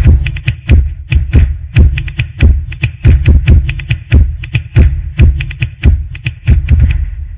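Electronic outro music: a fast percussive beat of about four hits a second over a heavy, steady bass, fading out at the end.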